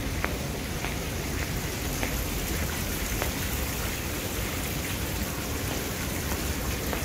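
Water-wall fountain: a sheet of water pouring down a glass panel with a steady, rain-like rush.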